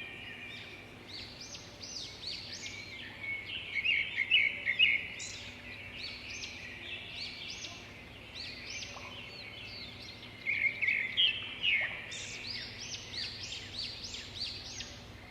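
Songbirds chirping and singing in quick overlapping notes, with louder clusters of rapid chirps about four seconds in and again about ten seconds in, over a faint steady low hum.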